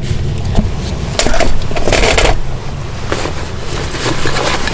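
Food packages being handled: crinkling and knocking, with two louder rustling bursts a little over a second and about two seconds in, over a steady low rumble.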